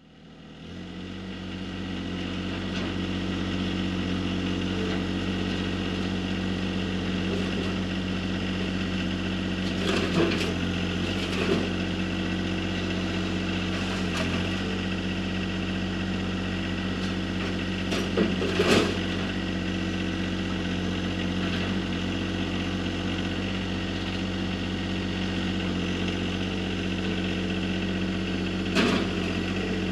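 John Deere 1025R subcompact tractor's three-cylinder diesel engine running steadily as it works the loader and grapple, fading in at the start. A few sharp metal clanks come through as the grapple grips, lifts and sets down a rusty metal cabinet.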